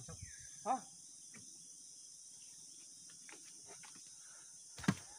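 Steady high-pitched drone of insects in the forest, with a short voiced call about a second in and a single sharp knock near the end.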